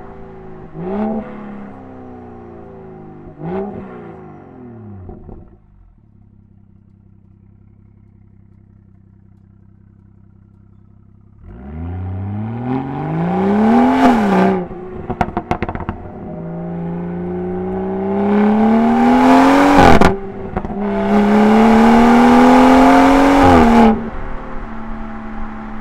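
BMW 340i's B58 turbocharged inline-six through an M Performance exhaust: two short throttle blips as it slows, a quiet steady idle, then a hard pull from low speed rising through three gears with a sharp drop at each shift. Crackles from the exhaust after the first upshift, and it eases off near the end.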